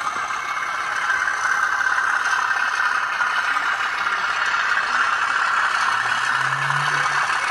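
N gauge model train running on track, its DCC sound decoder playing locomotive engine sound through a small speaker, mixed with the rattle of wheels and mechanism. A low hum joins in for a moment near the end.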